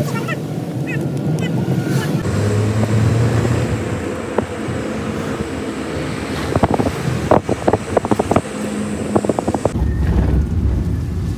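Car ride heard from inside the car: steady road and engine noise, with a quick run of sharp clicks partway through. Near the end it cuts to a low wind rumble on the microphone.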